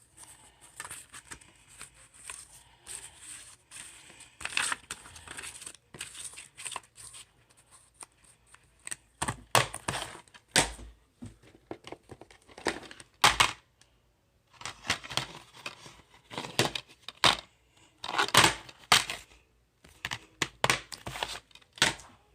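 Handling noise: an irregular run of tearing and crinkling sounds with sharp clicks, the loudest bursts coming in the second half.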